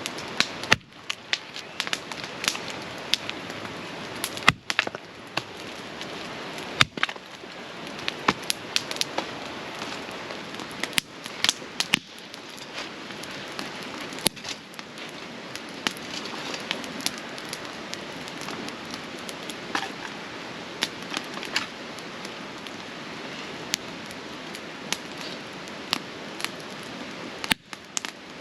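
Wood campfire crackling, with many sharp irregular pops and snaps over a steady hiss.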